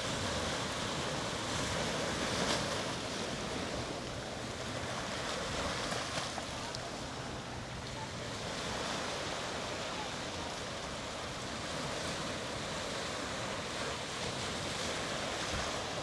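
Ocean surf washing onto a beach: a steady rushing that swells and eases gently.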